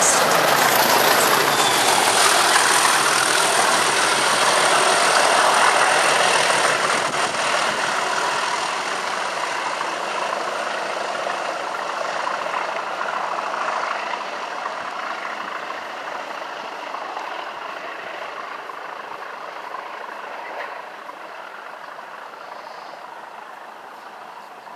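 English Electric diesel engines of a Class 20 and a Class 37 locomotive working hard under power, loud as they pass and then fading steadily as they pull away.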